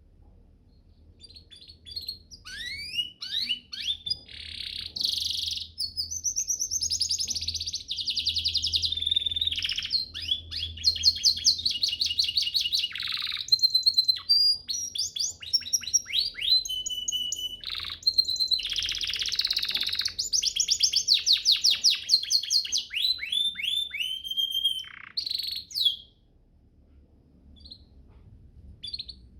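Domestic canary singing a long, fast song of rapid trills, rising sweeps and buzzy rolls, used as masteran tutor song for training other canaries. It stops about 26 seconds in, with only faint hum after it.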